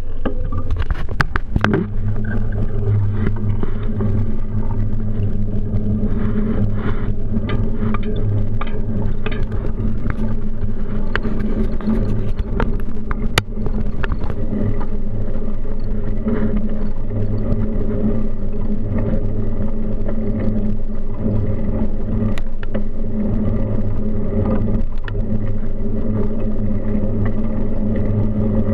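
Steady rumble of a moving bicycle picked up by a camera mounted on its handlebars: tyres rolling on the path and the frame vibrating. Scattered knocks and rattles come from bumps, mostly in the first half.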